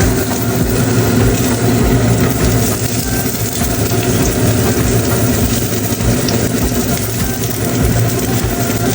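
A steady low motor-like hum with a hiss over it, unbroken throughout.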